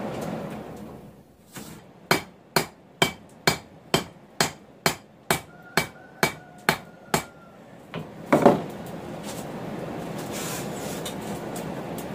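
Hand hammer striking a red-hot bar of 1 inch by 3/16 inch mild steel on an anvil, shaping it into a frying pan handle: about a dozen ringing blows, roughly two a second. A steady rushing noise comes before and after the blows, and there is a loud clatter about eight seconds in.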